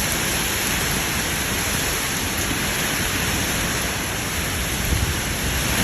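Steady noise of a severe storm: high wind and heavy rain, with a low, uneven rumble of gusts underneath.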